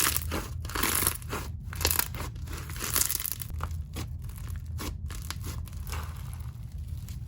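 Slime packed with crunchy beads being squeezed and stretched by hand, giving irregular crackles and crunching pops.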